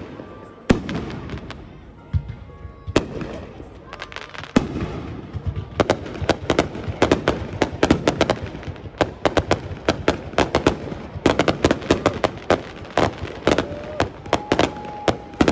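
Fireworks going off: a few separate bangs at first, then from about six seconds in a dense run of rapid bangs, several a second.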